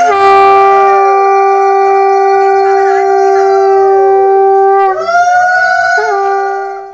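Conch shell (shankha) blown in a loud, steady held note, breaking off briefly about five seconds in and sounding again before stopping sharply at the end. Fainter wavering, sliding tones rise and fall over it.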